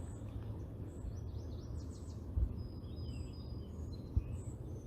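Outdoor ambience: several faint, short bird chirps and thin whistles over a steady low rumble.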